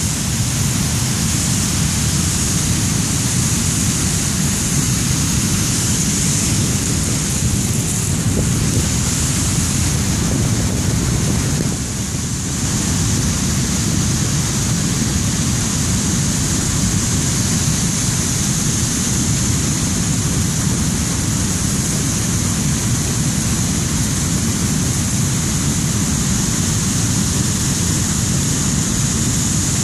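Water pouring over a dam spillway and churning in the whitewater below it: a loud, steady rush.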